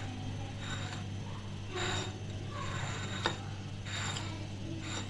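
Metal spoon stirring flour-coated chicken pieces in a glass bowl: a few light scrapes and clicks of the spoon against the glass, over a steady low hum.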